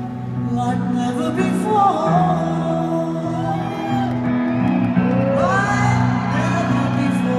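Music with singing: steady held chords underneath, with voices singing and whooping over them in rising and falling glides.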